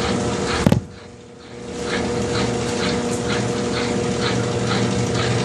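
Consul CWH12 12 kg washing machine running its final spin: a steady motor hum with a rhythmic swish repeating about three times a second. About half a second in there is a click, the sound drops away for about a second, then the spin sound comes back as before.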